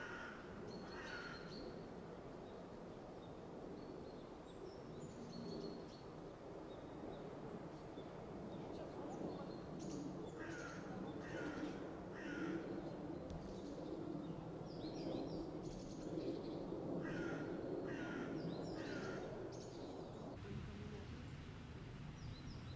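Crows cawing: a caw near the start, then two runs of three caws about a second apart, over steady low outdoor background noise.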